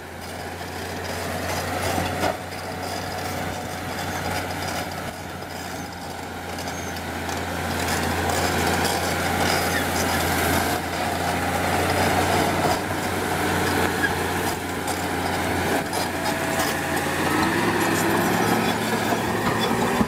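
Caterpillar crawler bulldozer's diesel engine running under load with a steady low drone as the blade pushes a mound of earth and brush. It grows louder over the first several seconds.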